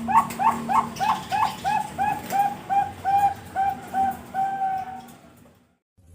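Zebra dove (Bangkok-line perkutut) singing: a rapid run of short coos that slows and ends in one longer, held coo, then fades out.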